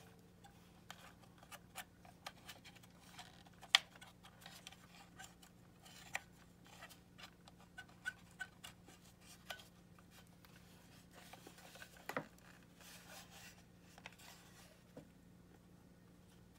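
Faint scratching and scattered small clicks of a cotton swab scrubbing corrosion out of a plastic battery compartment while the plastic toy remote is handled, with a sharper click about four seconds in and another pair near twelve seconds. A faint steady low hum runs underneath.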